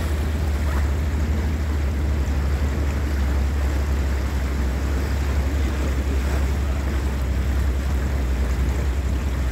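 A boat's motor running steadily, a constant low drone under the rush of water and wind on the microphone.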